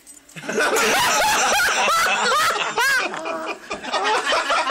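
Several people laughing loudly, starting about half a second in, mixed with high-pitched cries.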